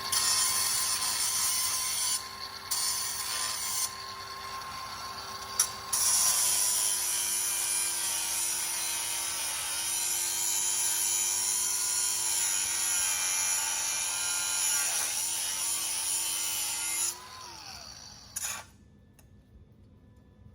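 Handheld rotary power tool scouring welding char off a steel frame, its motor whine steady under loud scraping that lets up twice early on. About three-quarters of the way through the tool is released and the motor winds down to a stop.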